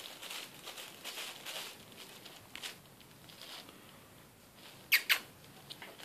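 Thin black plastic bag rustling and crinkling in short scrunches as a cat shifts its paws on it, with two sharp crackles close together about five seconds in.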